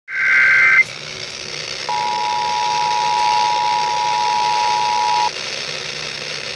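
Emergency Alert System radio broadcast. It opens with the end of a short, harsh digital header burst. After a pause filled with radio hiss, the steady two-tone attention signal sounds for about three and a half seconds and then cuts off.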